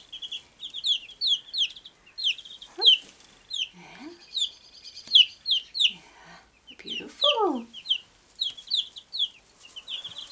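Wyandotte bantam chicks peeping: a steady run of short, high chirps, each sliding down in pitch, about three a second.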